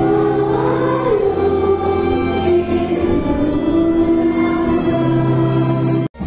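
Congregation singing a hymn together over long held accompanying notes. The sound cuts off abruptly near the end.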